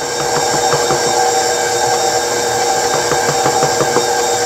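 Electric stand mixer running, its motor giving a steady whine while the beater works a wet bread dough with a quick, regular knocking.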